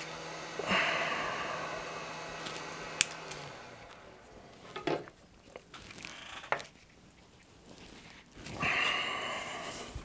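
Small tools and supplies being handled at an electronics repair bench: two spells of hiss that fade away, a sharp click about three seconds in and a few light knocks, over a low hum that stops a few seconds in.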